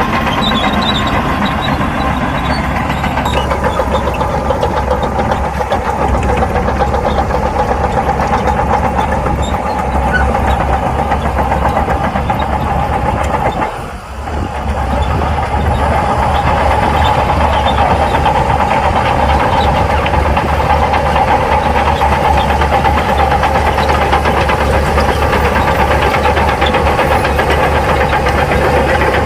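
Heavy earthmoving machine's diesel engine running steadily, with a brief drop in level about halfway through.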